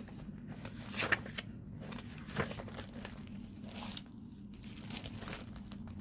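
Sheets of paper and a clear plastic bag being handled, rustling and crinkling, with a few sharper crackles about a second in and near the middle.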